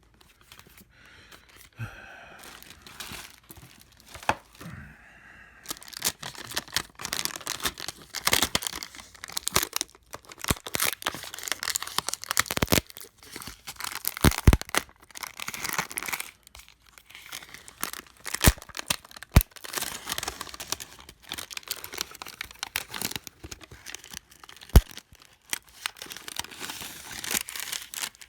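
Glued parts inside a MacBook Pro A1398 being pried and peeled off, with the adhesive tearing and crackling. A few clicks at first, then dense, irregular crackling with sharp snaps.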